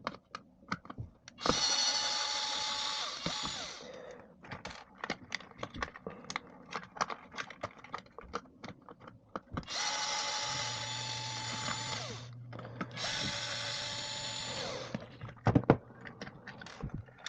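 Small handheld power tool motor running in three short bursts of a steady whine, with clicks and knocks of small parts being handled in between.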